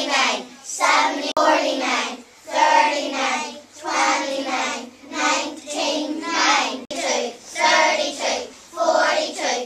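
A class of young children chanting numbers together in unison, counting in tens in a steady sing-song rhythm of about one number a second.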